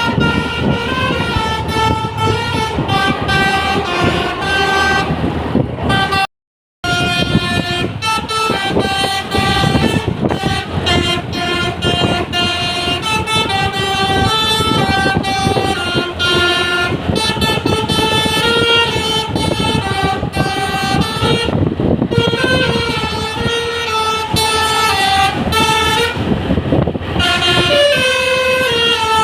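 Bus's 'telolet basuri' musical horn playing a tune: a long run of loud horn notes stepping up and down in pitch, broken by a brief cut to silence about six seconds in.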